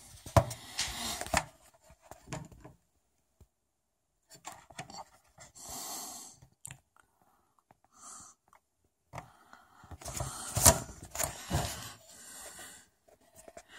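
Intermittent rustling handling noise in short bursts with gaps between, broken by a few sharp clicks, the loudest about eleven seconds in.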